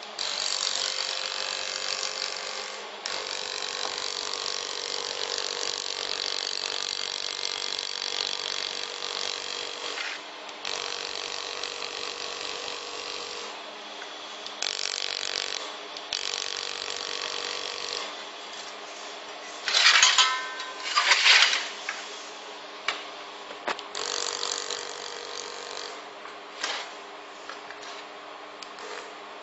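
Handheld fiber laser welder welding sheet metal: a hissing, crackling weld sound in runs of several seconds with short pauses between, over a steady hum. There are two short, much louder sputters about two-thirds of the way through, then a few brief pops.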